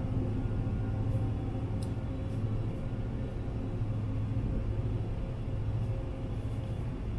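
Steady low mechanical hum with a faint steady tone above it, and a couple of faint ticks about one and two seconds in.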